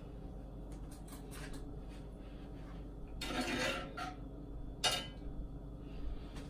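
Cookware and utensils handled in a kitchen: a brief scrape about three seconds in and a sharp clack about five seconds in, with soft clicks between.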